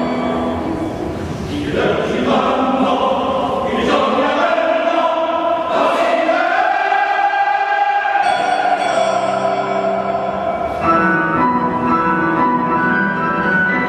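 A choir singing sustained chords in a large church, with one long held note about halfway through.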